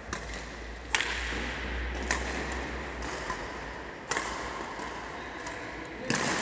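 Badminton rackets striking a shuttlecock back and forth in a doubles rally: five sharp cracks one to two seconds apart, the loudest about a second in, over steady room noise.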